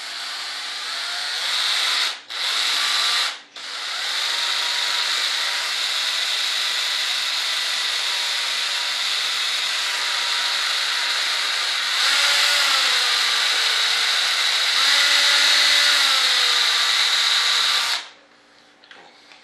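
Cordless power drill running, cutting out briefly twice near the start, running louder from about twelve seconds in, then stopping suddenly about eighteen seconds in.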